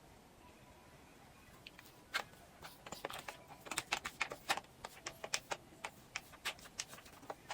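Irregular light clicks and taps, several a second, starting about two seconds in, like small hard objects being handled.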